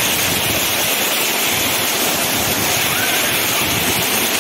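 Heavy rain pouring down and splashing into standing water on a flooded muddy yard: a loud, steady, dense hiss.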